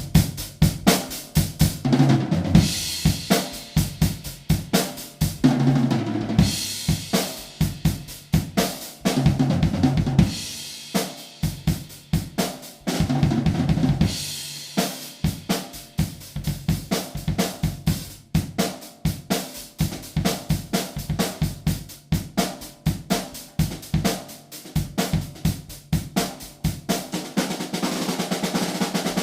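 A cheap drum kit, refitted with a steel Adams snare and an Aquarian Super Kick head on the bass drum with its front head removed, being played. It runs as a steady beat of bass drum, snare and hi-hat, with tom fills and cymbal crashes every few seconds and a fast run of strokes near the end.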